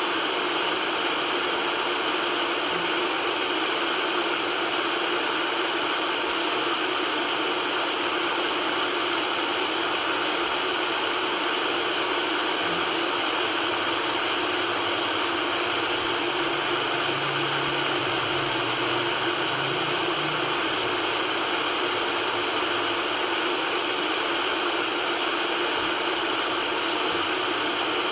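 Steady white noise: an even, unchanging hiss, bright and with little bass.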